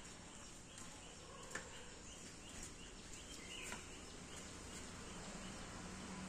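Faint outdoor background noise with a run of high chirps, about three a second, that stops about halfway through, and a couple of light clicks.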